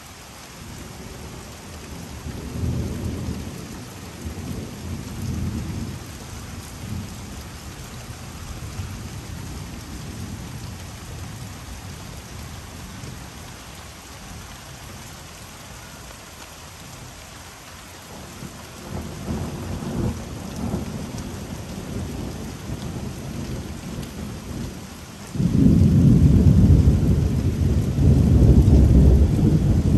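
Rolling thunder over steady rain. One long rumble swells in the first few seconds and fades, and a second one comes about two-thirds of the way through. Near the end a much louder peal breaks in suddenly and keeps rumbling.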